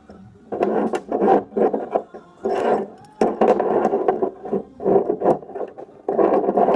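Steel plates and a turnbuckle rod rubbing and scraping as they are handled and slid across a concrete floor, in a series of strokes each about half a second to a second long.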